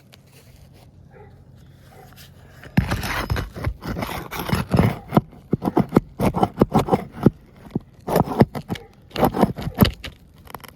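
Scraping and crunching at a roof shingle while working out a nail that has broken through it: a rapid, irregular run of scrapes starting about three seconds in.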